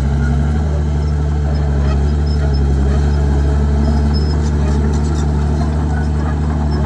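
Komatsu D51PX bulldozer's diesel engine running steadily, with faint short high-pitched squeaks now and then.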